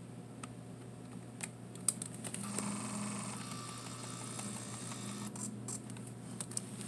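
Olympus Camedia C-4040Z digital camera being switched on by its top dial on a nearly flat battery. The dial clicks a few times, then the lens zoom motor whirs for about three seconds as the lens extends, with more small clicks and ticks near the end.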